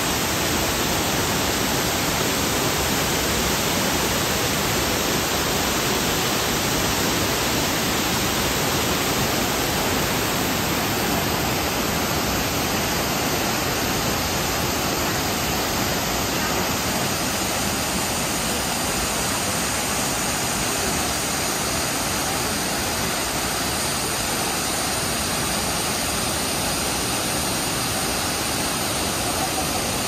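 Shifen Waterfall, a broad curtain of water falling over rock ledges into a pool, making a steady, unbroken rushing sound.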